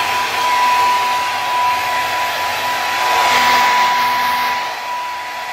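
Handheld hair dryer blowing at full power: a steady rush of air with a constant whine running through it, easing slightly near the end.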